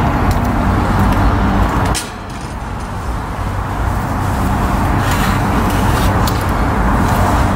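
Steady road traffic noise from a nearby expressway, with a low hum under a dense hiss. Hot water poured from a kettle into a mug at the start, with a drop in level about two seconds in, and a few light clicks later.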